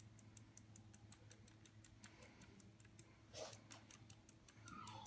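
Near silence with a faint, fast, even ticking, about five ticks a second, and one soft brief rustle about three and a half seconds in.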